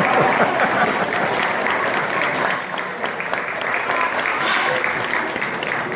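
Audience applauding, many hands clapping densely and steadily, with some voices under it.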